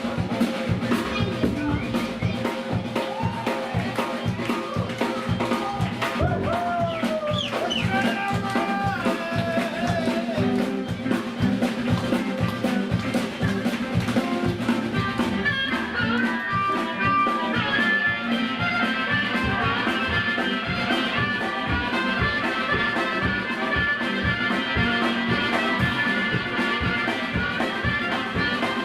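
Music with a steady, fast drum beat under sustained instrumental notes.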